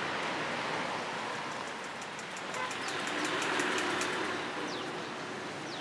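Roadside street ambience: a steady wash of traffic noise that swells as a vehicle passes midway, with a quick run of light high ticks through the middle and a few short falling bird chirps.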